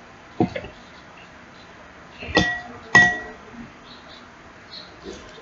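A dull knock, then two sharp ringing clinks about half a second apart, like a spoon striking the rim of a bowl.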